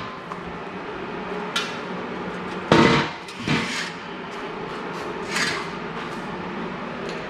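A few sudden metallic knocks and clanks, the loudest about three seconds in and a softer one near the middle of the second half, over a steady low hum.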